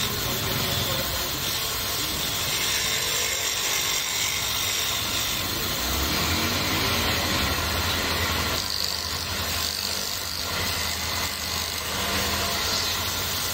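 Small wood lathe running with a steady motor hum while a hand-held turning tool scrapes and cuts the spinning wooden blank, a continuous rough shaving sound.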